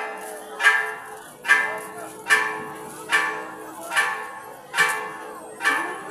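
Church tower bell tolled in quick, even strokes, seven in a row a little under a second apart, each ring dying away into the next.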